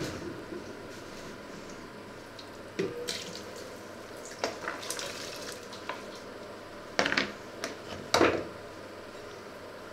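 A stainless-steel pot lid knocks with a short metallic ring, then chopped vegetables are tipped from a plastic tub into broth with splashing, and near the end two loud clatters of the tub or lid against the pot.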